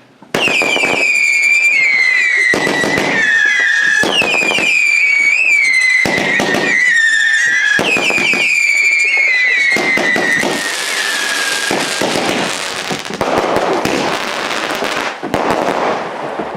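A whistling firework going off: three long, shrill whistles in a row, each sliding down in pitch, then a loud hissing crackle that dies away near the end. It is loud, and starts suddenly.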